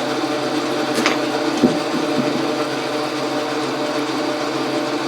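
Logan metal lathe running steadily: an even mechanical hum with several steady tones. A sharp click about a second in and a low knock shortly after.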